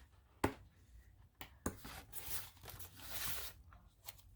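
Paper pages of a collage journal being turned and handled: a few light taps, then a soft rustle as a page is turned.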